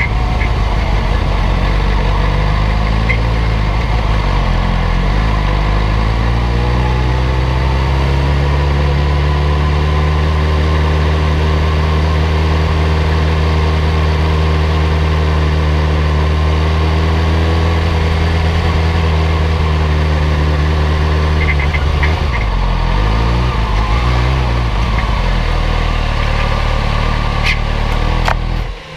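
Sport motorcycle engine running at low revs while the bike rolls slowly in low gear. The note holds steady for long stretches with small rises and falls, and drops away near the end as the bike stops.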